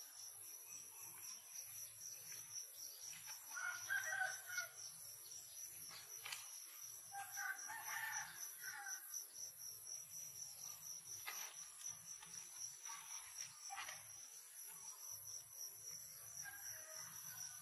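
A rooster crows twice, about four and eight seconds in, over a steady high-pitched insect drone, with a few light clicks.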